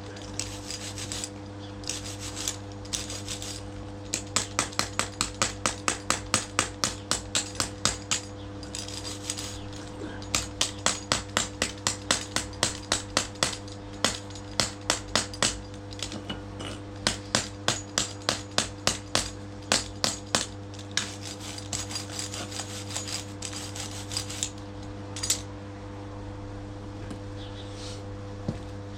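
Dewalt hammer being tested: runs of sharp metallic impacts, several a second, broken by short pauses, over a steady hum.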